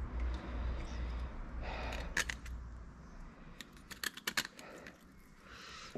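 Small sharp clicks and light rattles of metal parts and hand tools being handled during engine dismantling, with a low rustle of handling noise at first and a run of clicks about three and a half to four and a half seconds in.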